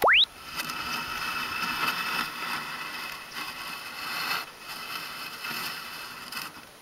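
A short, loud, rising electronic chirp from the GNSS-Stylus logging software's sound effects right at the start, then a softer, uneven scraping as the stylus tip is dragged through sand to write letters.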